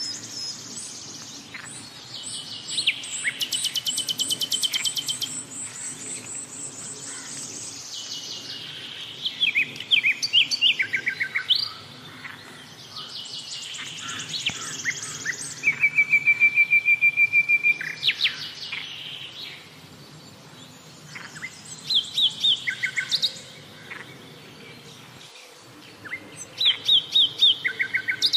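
Songbirds singing: varied phrases of chirps, fast trills and whistles come every few seconds with short pauses between them, one a level, steady trill about halfway through.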